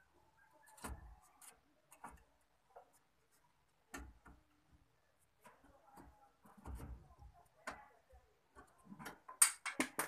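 Scattered light metallic clicks and a few dull knocks from the car's front suspension being handled, the steering knuckle and upper control arm moved by hand with the ball joint loosened. A sharper, louder run of clicks comes near the end.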